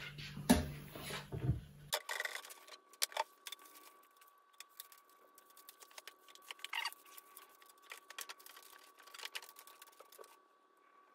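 Insulated wire being threaded through holes in plastic antenna spreader tubes: scattered small clicks, taps and rustles of wire and plastic tube being handled, busiest in the first two seconds and sparse after.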